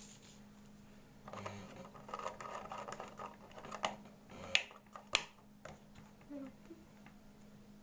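Kiri cheese portions being unwrapped by hand: a stretch of rustling foil and packaging, then two sharp clicks about half a second apart.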